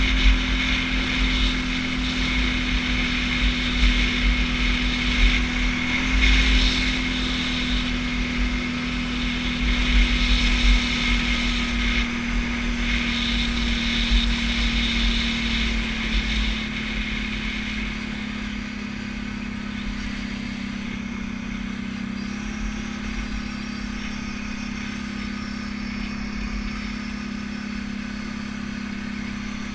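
ATV engine running steadily while riding over snow-covered lake ice, with gusty wind buffeting the microphone. About halfway through the wind eases, the sound gets a little quieter and the engine note drops slightly as the ATV slows.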